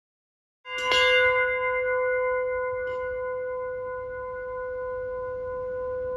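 A bell-like tone struck once, a little under a second in, then ringing on steadily with several clear overtones, fading only slightly.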